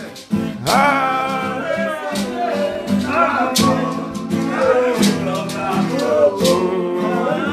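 Acoustic guitar strummed while a man sings.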